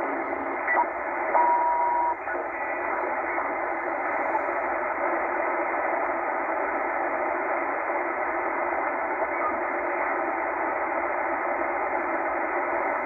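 Tecsun H-501X shortwave receiver in upper-sideband mode being tuned through the 12 MHz utility band: steady static hiss from its speaker, thin and band-limited by the sideband filter, with a brief steady tone for under a second about a second and a half in.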